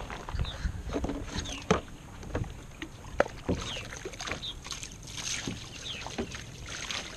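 Water slapping and splashing against the hull of a plastic fishing kayak on choppy water, with irregular knocks and clicks as gear is handled aboard. Short high chirps come through now and then.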